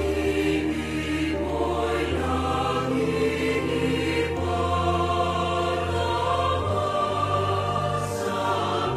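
Background music: a choir singing slow, held notes over sustained low bass tones.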